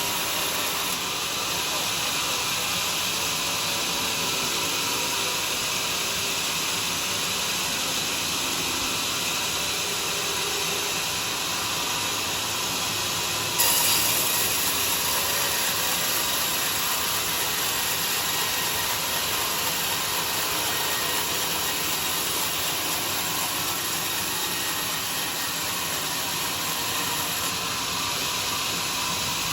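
Homemade sawmill's saw running steadily through a durian log, a continuous hissing cut. About fourteen seconds in the noise jumps suddenly louder and brighter, then settles back over a few seconds.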